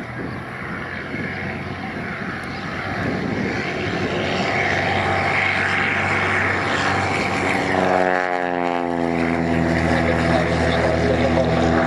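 Propeller-driven light aircraft's piston engine growing louder as it approaches, its pitch dropping as it passes close by about eight seconds in, then running on steady. Gusty wind rumbles on the microphone.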